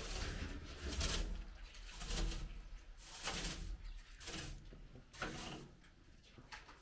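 Broom swishing across carpet in repeated strokes, about one a second.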